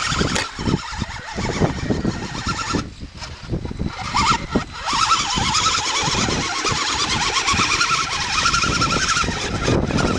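Electric motor and gear drive of a 6x6 RC crawler whining as it is driven through mud, its pitch wavering up and down with the throttle, over a rough, uneven rumble.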